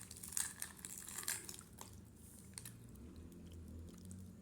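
Someone chewing gummy candies, with soft, irregular wet mouth clicks. The clicks are strongest in the first second and a half, then trail off to faint.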